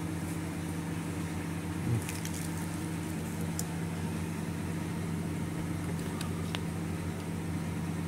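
Steady machine hum, with a few faint clicks along the way.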